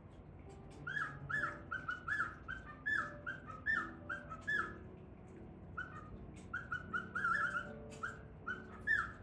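Male cockatiel whistling a song: a run of short, clear whistled notes, two or three a second, with a brief break midway.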